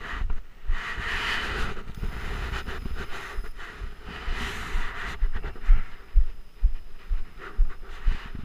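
Trek Rumblefish Pro full-suspension mountain bike rolling over a rooty dirt singletrack: irregular low thumps as the bike jolts over bumps, louder and more frequent in the second half, over a steady hiss of tyre and wind noise.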